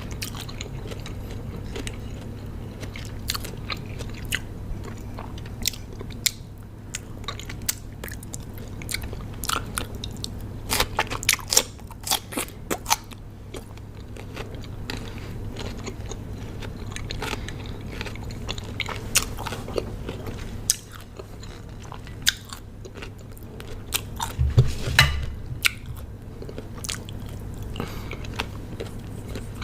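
Close-miked biting and chewing of raw cucumber: crisp crunches and snaps scattered throughout, with bunches of louder crunches about a third of the way in and again near the end, over a steady low hum.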